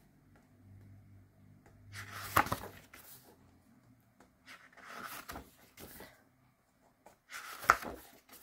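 Photo book pages being turned by hand: three paper rustles, about two, five and seven and a half seconds in, the first and last ending in a sharp flap.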